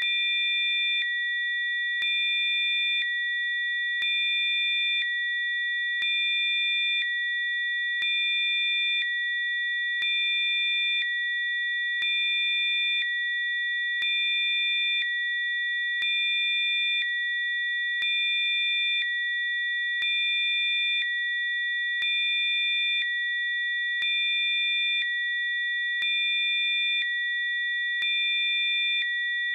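Electronically generated Rife frequencies: several steady, high-pitched pure sine tones sounding together, with a slight step in loudness and a faint click every second.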